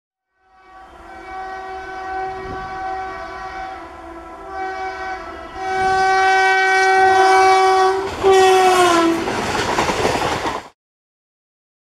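Indian Railways electric locomotive's air horn sounding in a series of long blasts as it approaches, the last blast dropping in pitch as it passes. The coaches then rush by with wheel noise, and the sound cuts off suddenly about three-quarters of the way through.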